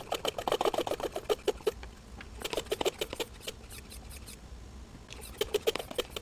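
Motive Products Power Bleeder hand pump being worked in quick strokes, pressurising the bleeder tank to 10 PSI for a brake bleed. The strokes come in three runs with short pauses between.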